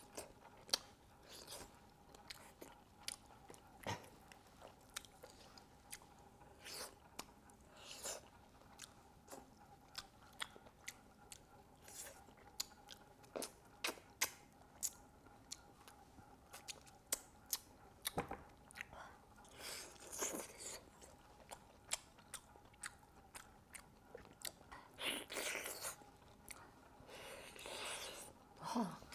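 Close-miked chewing and lip-smacking of someone eating pork knuckle: a dense run of small wet clicks, with a few longer hissing sounds about two-thirds of the way through and near the end.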